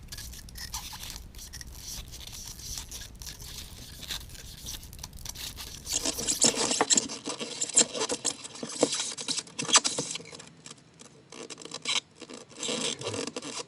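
Antenna cables being fed by hand through a tight opening: scraping and rubbing with scattered clicks and knocks. The handling is quieter at first and louder from about halfway through.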